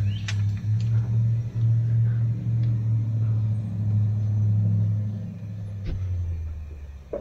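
A motor running with a low, steady hum that fades away near the end, with a few sharp clicks over it.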